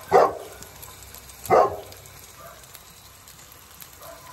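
A dog barking twice, two short loud barks about a second and a half apart.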